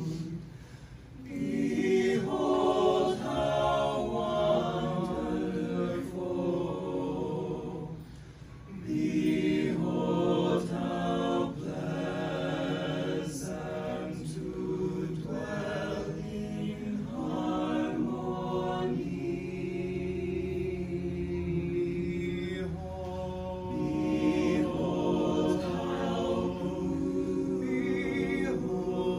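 Small mixed choir of men's and women's voices singing a cappella in several parts, held chords moving phrase to phrase, with short breaks between phrases about a second in and about eight seconds in.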